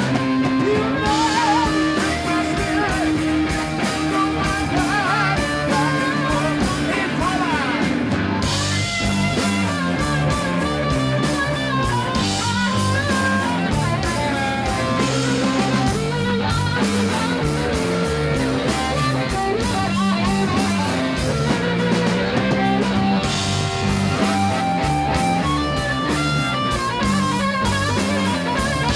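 Live blues band in an instrumental break: an amplified blues harmonica, cupped against a bullet microphone, plays held and bending notes over electric guitar and drums.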